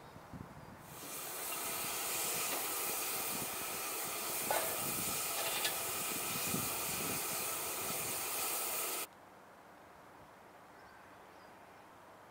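Steam hissing steadily from a standing steam locomotive, a 1945 Bagnall 0-6-0 saddle tank, with a couple of faint knocks; the hiss cuts off abruptly about nine seconds in.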